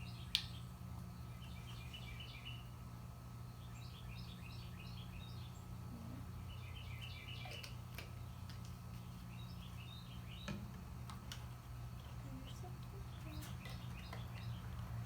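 A small bird chirping in quick clusters of short high notes, repeated every couple of seconds, over a steady low hum. A single sharp click sounds just after the start.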